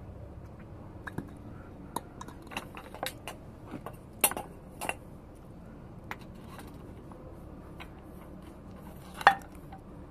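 Metal tools and parts clinking and knocking against each other in irregular, scattered taps, with two sharper clanks about four and nine seconds in.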